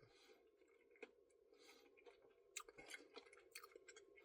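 Faint chewing of a mouthful of ice cream Blizzard with candy pieces, with a few soft crunching clicks about a second in and more in the second half.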